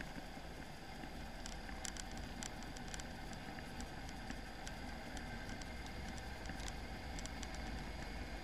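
Off-road vehicle driving through a shallow stream: a steady low rumble under an even hiss of moving water, with scattered sharp ticks of splashing spray.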